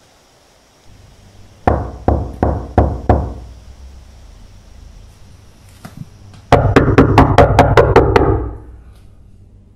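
Knocking on a wooden door: four knocks, then after a pause a fast, loud run of about ten knocks lasting nearly two seconds.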